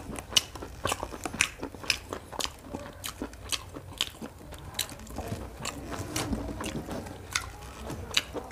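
Close-miked wet chewing of chicken curry and rice, with sharp lip smacks and mouth clicks coming irregularly, several a second.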